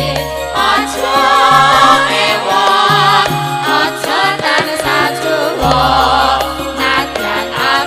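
Music with a singer: a wavering sung melody over instruments and a low bass line that shifts every second or two.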